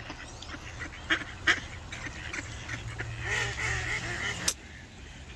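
Ducks quacking: a few short quacks, then a quick run of quacks from about three seconds in that cuts off suddenly at about four and a half seconds.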